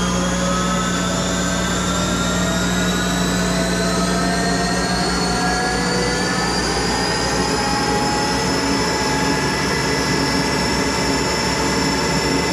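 Monarch 10EE lathe with its electronic variable-speed drive running the spindle up toward top speed: a whine that keeps rising in pitch and levels off around eight seconds in, over a steady low hum.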